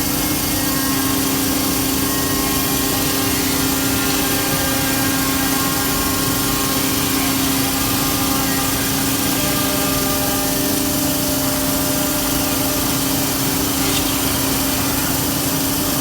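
Biesse CNC router spindle running with a steady whine as the bit carves a design into a solid-wood wardrobe door panel.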